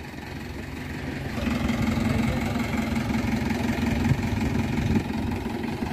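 Mahindra Yuvo 585 DI tractor's four-cylinder diesel engine idling steadily, growing louder about a second and a half in.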